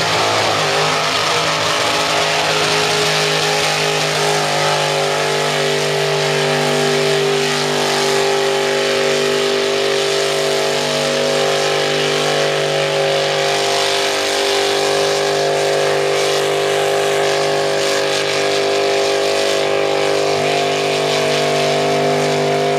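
Mud bog truck's engine revving up and then held at steady high revs as its tyres spin and churn in deep mud, throwing mud spray.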